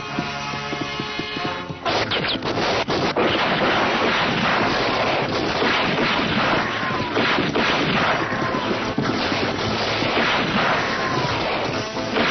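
Gunfight sound effects: a dense, continuous stream of gunshots and crashes over background music, starting about two seconds in after a short stretch of music alone, with short falling whistles every second or two.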